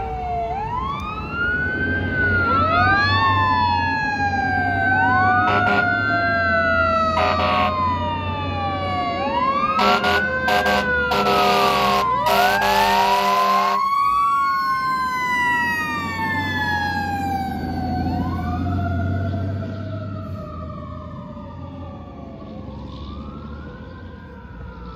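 2003 E-One Cyclone II fire engine on an emergency run: its siren wails, rising and falling over and over, over the low rumble of the engine. It gives a few short horn blasts, then one long blast of about four seconds that cuts off around the middle. The sound fades as the truck passes and moves away.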